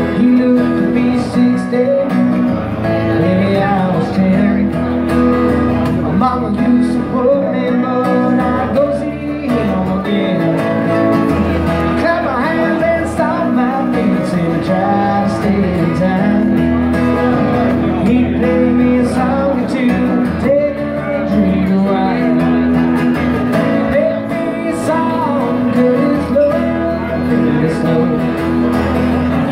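A man singing while strumming an acoustic guitar in a live solo performance.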